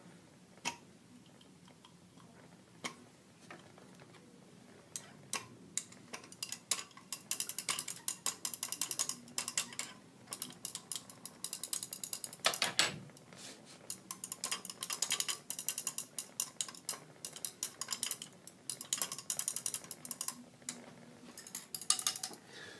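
Glass stirring rod clinking and scraping against the inside of a glass boiling tube while stirring benzoic acid crystals in hot water to dissolve them. A few single clicks at first, then runs of fast, repeated ticking from about five seconds in.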